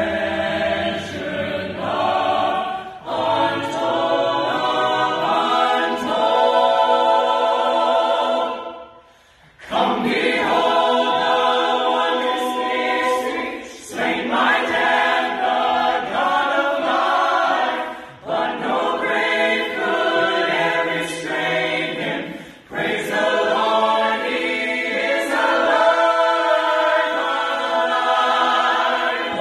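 Mixed a cappella choir of men and women singing in harmony, phrase after phrase with short breaths between them, breaking off briefly about nine seconds in before coming back in together.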